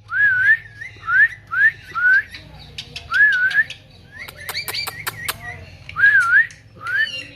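Pet parrot whistling a string of short whistles, about eight in all, some rising and some wavering, with sharp clicks in between.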